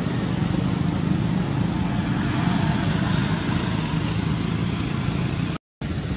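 Road traffic: steady engine and tyre noise of vehicles on the road, swelling slightly a couple of seconds in as one passes. The sound drops out completely for a moment near the end.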